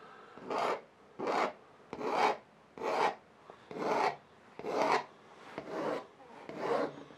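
White pencil scraping across a dried acrylic painting in long strokes, about eight of them, roughly one a second, each a short rasp with a pause between.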